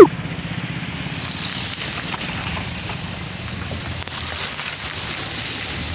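A car drives past on a wet asphalt road, its tyres hissing on the wet surface as it goes by, over a steady low rumble. A brief, loud, sharp falling sound comes at the very start.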